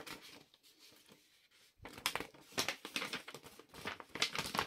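Thick paper pages of a model-kit instruction booklet being turned and handled, giving a run of crinkling rustles that starts about two seconds in.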